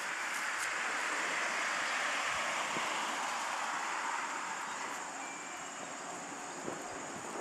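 A vehicle passing on the street: a broad tyre-and-road hiss that swells over the first couple of seconds and fades away by about halfway through. A steady high insect buzz runs underneath.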